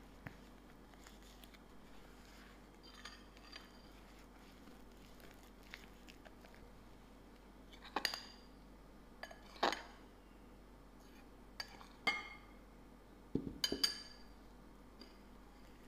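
Silicone spatula stirring and scraping soft tart dough in a glass mixing bowl, quietly, with a handful of sharp glass clinks that ring briefly, spread over the second half. A quick cluster of knocks and clinks comes near the end, as more flour is added to the bowl.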